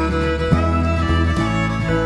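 Background music: an instrumental tune with held melody notes over a bass line that changes note every half second or so.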